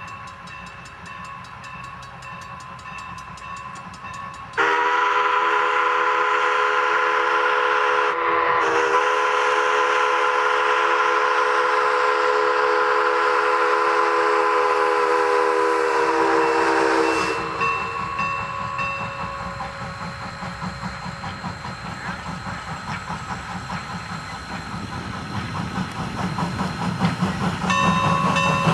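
Steam locomotive working a passenger train with a steady exhaust beat. About four and a half seconds in, its multi-tone steam whistle blows loud for around twelve seconds, with a short break soon after it starts, and dips in pitch as it is shut off. Afterwards the exhaust chuffs grow louder as the engine approaches.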